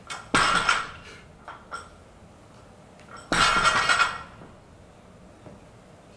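Loaded barbell clanking twice during deadlift reps, the weight plates rattling and ringing on the bar. Each clank lasts under a second, the second about three seconds after the first.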